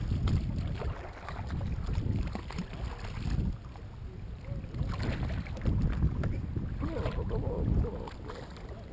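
Wind buffeting the microphone in uneven gusts, with water splashing and small knocks against a kayak as a redfish is brought alongside.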